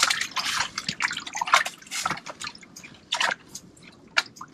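Water splashing and dripping at an ice-fishing hole as a just-landed lake trout is handled at the hole: irregular short splashes and drips, busier at first and thinning out near the end.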